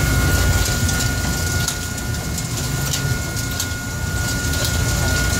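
Longline fishing boat's machinery running with a steady low rumble and a thin steady whine, while metal hooks and snaps clink irregularly as they are handled on the hook rack.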